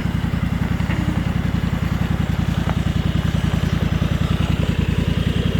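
An engine running steadily at an even, low speed, close by, with a fast regular pulse.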